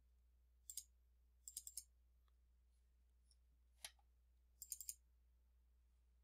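Computer mouse clicking in small quick groups: a double click, a burst of four, a single click, then another burst of four, over near silence.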